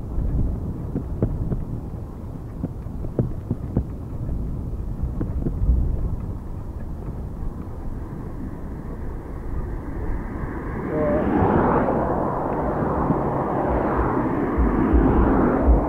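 Cars overtaking a bicycle on a paved road, their tyre and engine noise swelling loud from about eleven seconds in, with a second swell near the end. Before that, a low rumble of wind on the phone microphone with scattered knocks from the moving bike.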